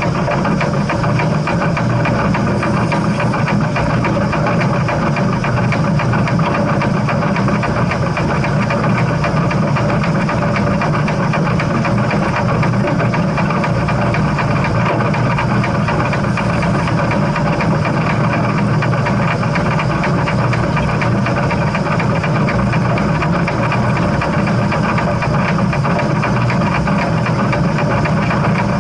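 Steam train running at a steady pace: a loud, continuous rumble with a fast, even beat that does not change.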